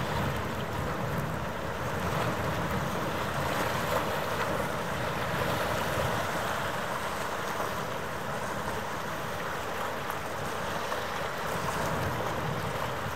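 Wind buffeting the microphone in uneven gusts over a steady rushing harbour noise, with a faint steady machinery hum beneath.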